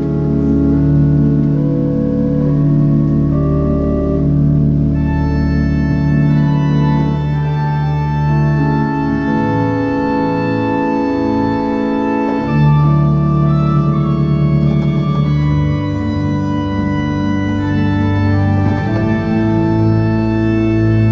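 Organ music: slow, held chords that change every few seconds, with brighter upper tones coming in about five seconds in.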